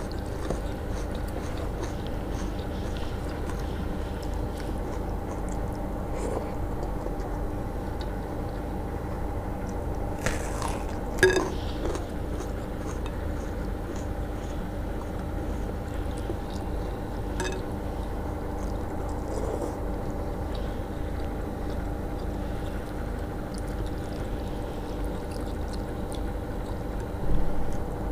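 Fingers squeezing and mixing water-soaked rice (panta bhat) with onion in a bowl: soft wet squishing, with a cluster of sharp clicks against the bowl about ten seconds in, over a steady low hum. A soft low thump comes near the end.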